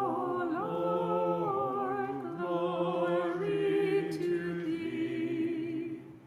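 Unaccompanied Orthodox liturgical chant: voices hold long notes that step slowly up and down, then stop about six seconds in.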